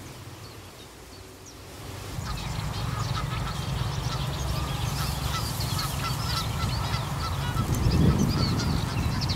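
Canada goose and her goslings calling: a run of many short, high calls over a steady low hum that sets in about two seconds in.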